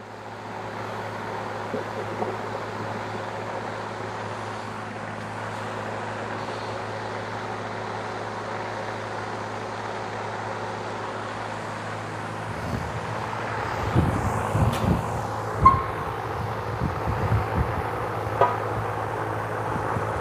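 Gasoline pouring from a small engine's fuel tank into a container: a steady splashing stream that starts about half a second in, with clunks and knocks of the tank being handled over the last several seconds.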